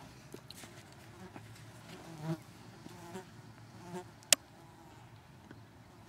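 A flying insect buzzing in short passes, about two, three and four seconds in, with one sharp click just after four seconds.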